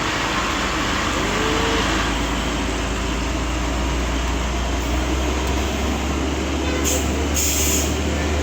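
Heavy diesel truck engine running under load on a steep climb: a steady low rumble. Near the end come two short, high hisses.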